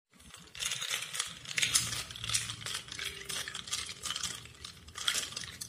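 Metal spoon stirring ice cubes in a glass of iced coffee, clinking and rattling against the ice and the glass in quick, uneven strikes that start about half a second in.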